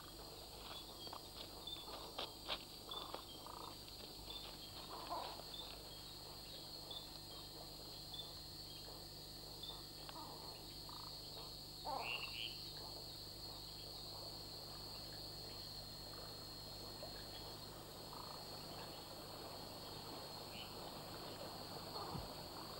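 Night-time tropical forest chorus: a steady, high-pitched insect trill with scattered short frog calls over it, and one brief higher chirp about halfway through.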